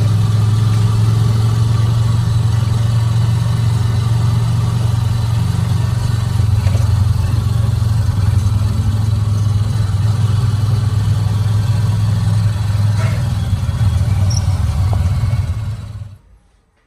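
Steady engine and road noise of a moving vehicle: a loud, even low drone that cuts off suddenly near the end.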